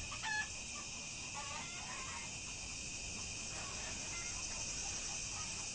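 Rural outdoor ambience: steady high insect chirring, with a few faint bird calls.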